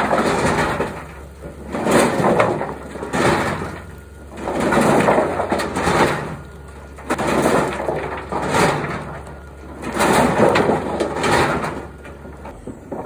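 Firewood tumbling and clattering inside the rotating mesh drum of a Flipscreen WL130 screening bucket, shaking the dirt out of the wood, in loud swells every second or two. Under it runs the steady low hum of the wheel loader's engine.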